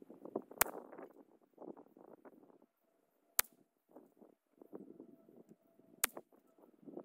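Three shots from a Christensen Arms .22 LR rifle firing SK Rifle Match ammunition, each a sharp crack, spaced about two and a half seconds apart. Softer rustling and handling noise fills the gaps between the shots.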